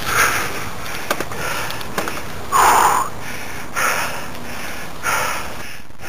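A mountain biker breathing hard on the trail, with a loud breathy exhale about every second and a bit. A few sharp clicks and rattles from the bike on rough ground come through over the steady rumble of riding.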